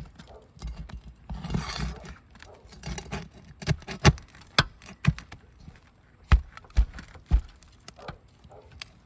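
Flat steel pry bar scraping and knocking against asphalt shingles while a roofing nail is worked out. A short scrape comes first, then about eight sharp, irregular knocks.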